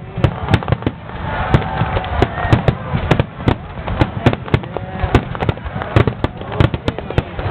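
Aerial fireworks going off in a rapid barrage, several sharp bangs and cracks a second over a continuous rumble.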